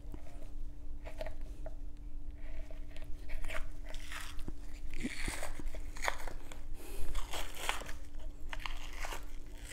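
Membrane being pried loose and peeled off the bone side of a raw rack of baby back ribs by gloved hands: irregular wet, crackly tearing and clicking, with a steady hum underneath.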